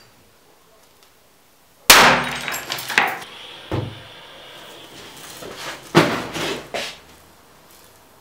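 A small homemade cannon cast from melted soda-can aluminium firing with sharp bangs: a loud one about two seconds in, a smaller one soon after, and another loud one about six seconds in, each with a short ringing tail.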